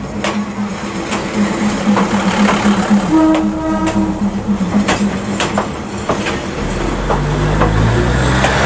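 Diesel railcar passing slowly at arm's length, its engine droning steadily while its wheels give irregular clicks and knocks over the rails. A deeper engine drone comes in about two-thirds of the way through as the next car goes by.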